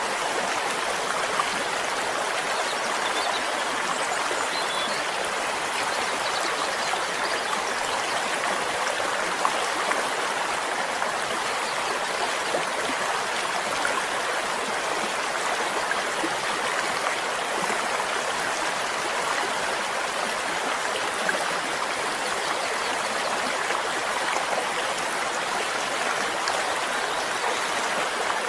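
Flowing stream: a steady, even rush of running water.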